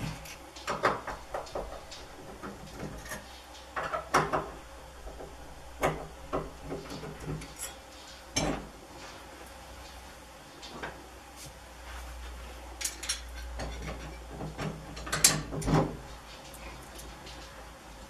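Scattered metal clicks and rattles of door hardware being handled: a handle lock worked against a lever door handle, in short bursts with pauses between.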